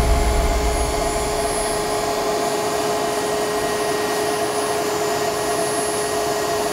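JetCat P100 model jet turbine running at idle in a BVM Bandit: a steady, even rushing hiss with constant whining tones, neither rising nor falling.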